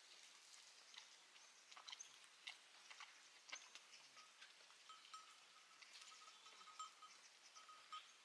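Near silence, with a small wood fire crackling faintly in scattered soft clicks, and a faint steady high tone that comes and goes from about five seconds in.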